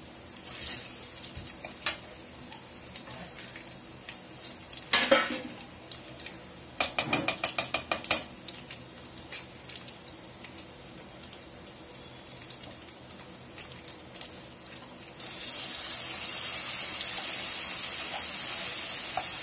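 Oil frying gently in a kadai with mustard seeds, garlic and curry leaves, a metal ladle clinking against the pan and once tapping it in a quick run of about ten clicks. About three-quarters of the way through, ground tomato paste hits the hot oil and sets off a sudden, loud, steady sizzle.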